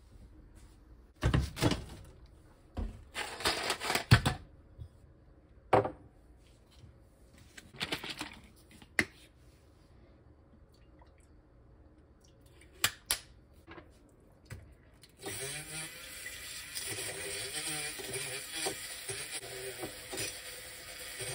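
Knocks and clatter of bottles and a glass jar being handled on a counter, then about fifteen seconds in a handheld battery milk frother starts and whirs steadily, frothing liquid in a glass jar.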